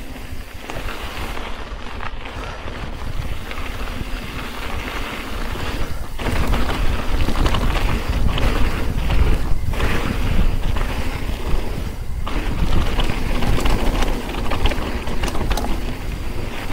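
Wind buffeting the microphone over the sound of mountain-bike tyres rolling on a rocky dirt singletrack, with the bike clattering and rattling over bumps. The rumble grows heavier about six seconds in.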